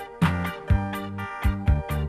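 Instrumental backing music without vocals: a steady beat of bass notes and drum hits, about two a second, under sustained chords.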